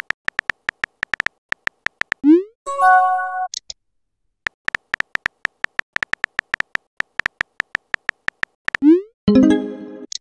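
Texting-app sound effects. Rapid keyboard tap clicks as a message is typed end in a short rising swoosh and a brief message tone as it is sent. This happens twice, and the second tone near the end is lower and fuller.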